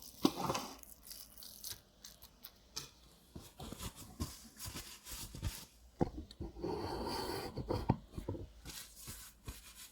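Homemade slime being mixed as cream is worked into it: irregular sticky tearing and scraping sounds with scattered clicks, and a longer stretch of rustling about two-thirds of the way through.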